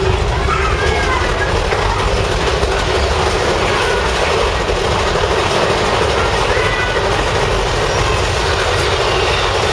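Big Thunder Mountain Railroad mine-train roller coaster running along its track, a steady loud rattling rumble of the cars on the rails heard from aboard, with a few short high squeals.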